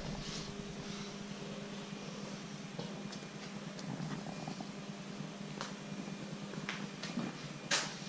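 A steady low hum with a few faint clicks and taps over it, and one sharper click near the end.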